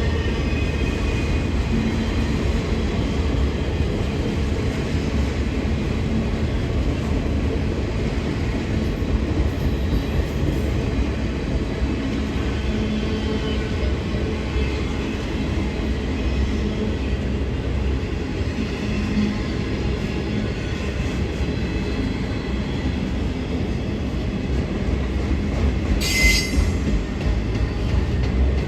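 Freight train cars rolling past on the rails with a steady rumble and faint intermittent wheel squeal. About 26 seconds in there is one short, sharp metallic screech.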